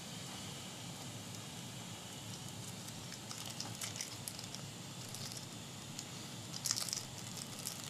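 Faint crinkling and small crackles of a plastic parts bag of screws being handled, with a brief louder flurry near the end, over steady background hiss.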